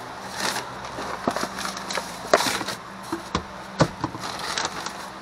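Plastic feed bag rustling and crinkling while being handled, with a string of sharp knocks and clicks from a plastic scoop and plastic bins bumping together.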